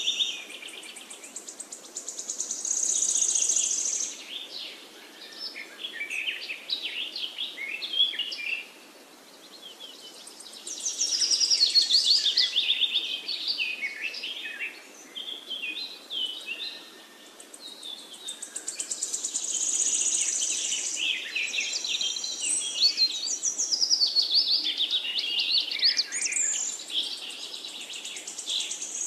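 Songbirds singing in repeated bouts of rapid high trills and chirps, with quieter pauses between the bouts.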